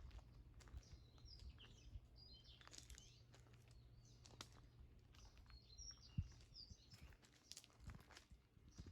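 Faint birds chirping in short bursts of high calls, in several groups, over a low steady rumble, with scattered small clicks and a soft thump about six seconds in.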